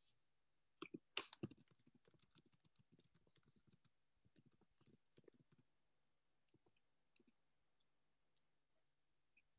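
Near silence broken by a quick cluster of clicks and rustles about a second in, the loudest part, followed by scattered faint clicks that thin out after about six seconds.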